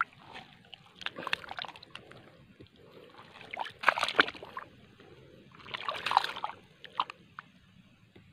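Hands digging and scooping in shallow muddy water at a bank, opening up an eel's burrow: irregular sloshes and splashes in several bursts, the loudest about four and six seconds in.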